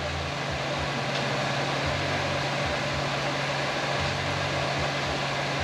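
Steady machine hum with an even airy hiss, and a faint click about a second in.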